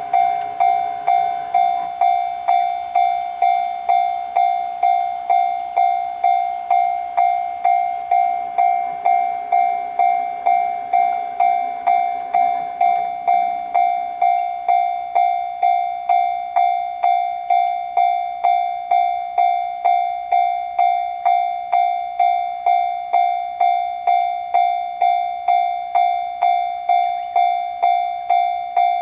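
Japanese railroad crossing warning bell ringing its steady 'kan-kan' at an even pace of about three strikes every two seconds. It has just started, signalling that a train is approaching. A low rumble fades away in the first half.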